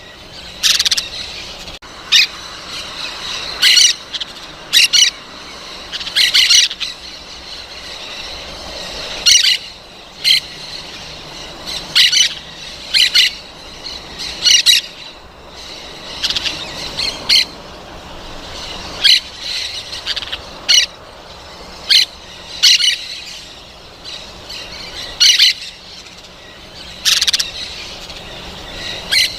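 Parrots calling: short, loud, high-pitched calls repeated roughly every one to two seconds, over a steady background of softer chatter.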